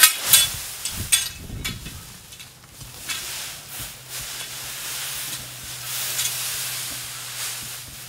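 Loose dry hay rustling and crackling as it is forked and spread by hand with a pitchfork: a few sharp crackles in the first two seconds, then a steadier rustle.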